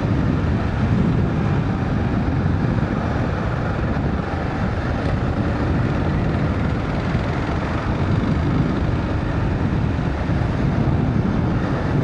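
Dual-sport motorcycle riding along a gravel trail: steady engine and wind noise with tyres running over gravel.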